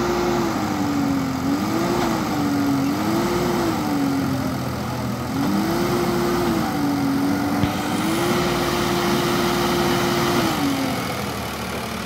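Eicher 650 tractor's diesel engine labouring as it climbs a heap of loose earth, its pitch rising and falling several times as the throttle is worked, then held high for a couple of seconds past the middle before dropping near the end.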